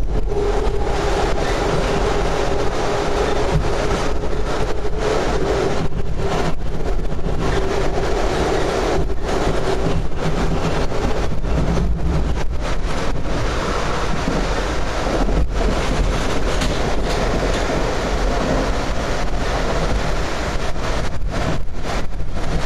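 Amtrak Empire Builder Superliner car running at speed, heard from inside at the window: a steady low rumble and rush of wheels on rail. A steady hum sounds over it for the first half and fades out about halfway through.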